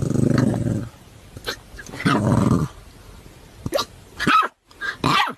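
A puppy growling twice, each growl low and about a second long, then giving three short, sharp yelps near the end.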